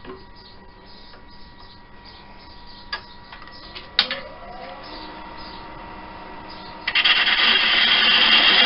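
Wood lathe motor whining steadily, with a few sharp clicks. About four seconds in, a click is followed by a rising whine as the lathe speeds up. Near the end, a gouge starts cutting into the spinning elm blank, a loud, steady scraping rush of tool on wood.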